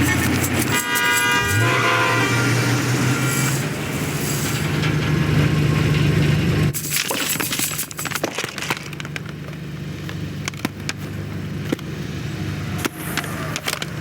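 Car engine and traffic running steadily, with a brief pitched tone about a second in. Around seven seconds in it cuts abruptly to a quieter stretch of small clicks and rattles.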